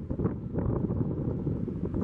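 Wind buffeting the microphone: a dense, uneven low rumble that rises and falls with the gusts.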